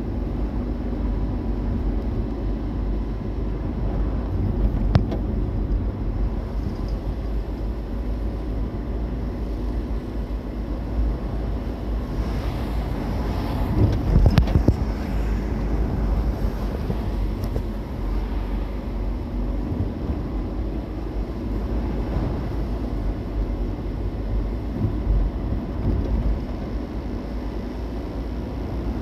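A car on the move: a steady, low road and engine rumble, with a short louder patch about halfway through.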